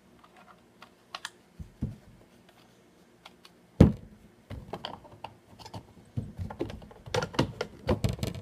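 Plastic Tech Deck ramp pieces and connectors being handled and snapped together on a wooden table: scattered light clicks, a sharp knock about four seconds in, then a busy run of clicking and tapping.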